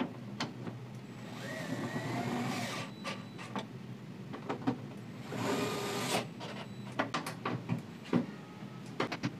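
DeWalt cordless screwdriver whirring in two short runs, the first rising in pitch as it spins up, tightening the bolts that fix a table saw's tabletop to its casing. Sharp clicks and knocks of the driver and bolts being handled come between the runs.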